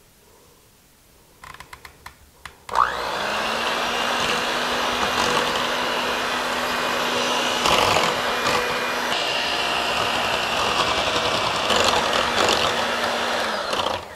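Electric hand mixer starting up about three seconds in, its pitch rising quickly, then running steadily as its beaters churn cream cheese into liquid lime gelatin, and switching off near the end. A few light knocks come just before it starts.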